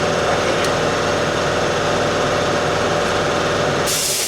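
A motor runs steadily. Near the end there is a short, loud hiss of air as the running stops.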